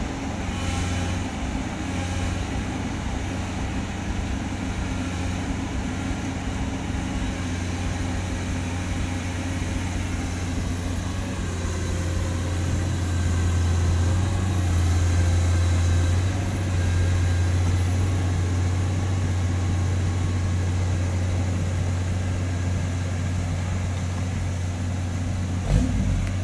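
Diesel engines of a Komatsu PC200 excavator and a loaded hardtop pickup running steadily as both crawl through deep mud, with a strong low hum. The engine noise grows louder for a few seconds in the middle, and there is a single thump near the end.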